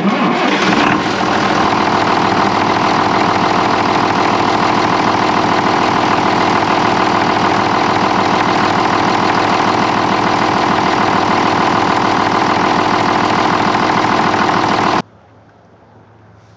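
John Deere 6510 tractor's diesel engine running steadily while the freshly resealed steering cylinder is worked and checked for leaks. It cuts off suddenly near the end.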